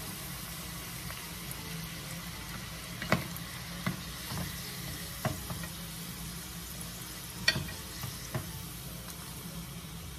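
Dried fish deep-frying in a small pot of hot oil, sizzling steadily, while a wooden spatula stirs it and knocks against the steel pot a few times.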